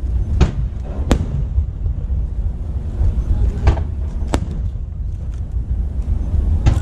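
Fireworks bursting: about five sharp cracks spread unevenly over several seconds, over a continuous low rumble.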